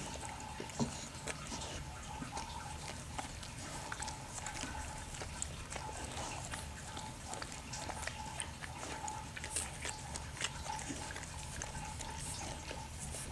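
Mother pit bull licking and nuzzling her newborn puppy: irregular wet smacking and licking clicks, with a steady faint hum underneath.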